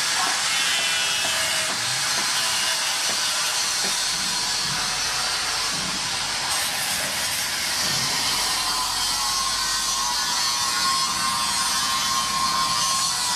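Steady hissing rush of air from the forge's blower, with a faint steady whine that grows stronger in the second half.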